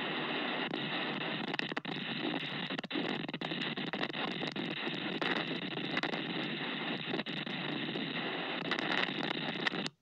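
Storm wind buffeting a security camera's low-quality microphone: a steady, thin rushing noise with frequent crackles and clicks. It cuts off abruptly at the very end.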